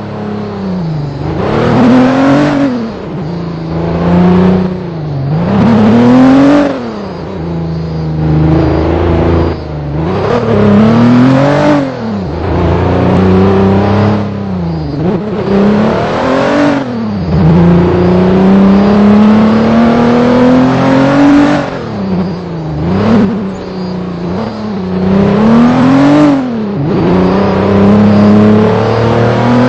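A vehicle's engine driven hard offroad, its pitch climbing and then falling again every two to three seconds as the throttle is opened and closed. About two-thirds of the way through comes one longer, slower climb.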